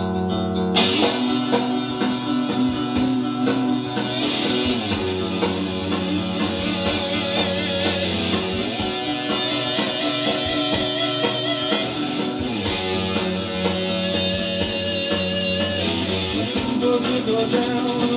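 Guitar music played from a vinyl record on a turntable, amplified by a 1961 Bogen MX30 tube amplifier with 6L6 output tubes. The fuller, brighter part of the arrangement comes in about a second in.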